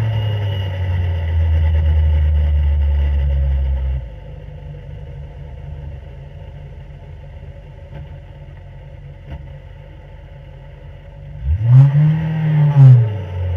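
On-board sprint car engine slowing down: a steady engine note at about 3,500 rpm for the first few seconds, then it drops to a quieter low-rev coast. Near the end the revs sweep up and back down, loudly, as the car changes down to third gear.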